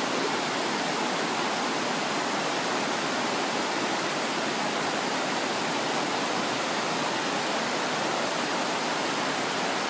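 Fast forest creek rushing over rocks in whitewater rapids: a steady, even rush of water that does not change.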